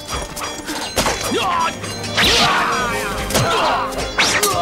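Action-scene music under a series of sharp whacks and thuds: punch and strike sound effects of a hand-to-hand fight.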